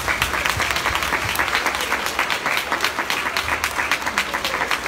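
Audience applauding: many hands clapping fast and steadily together.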